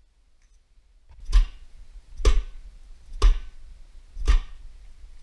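Four sharp knocks, evenly spaced about a second apart, each with a heavy low thump and a brief ring.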